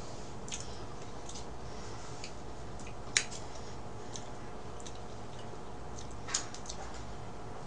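Light eating sounds from a spoon and cake: a few scattered short clicks and taps, the sharpest about three seconds in and another a little after six seconds, over a steady low room hum.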